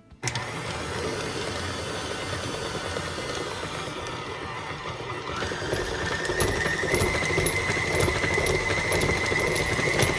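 Stand mixer running, its flat beater working flour into cookie dough in a metal bowl. About halfway through it gets louder and a steady high whine comes in.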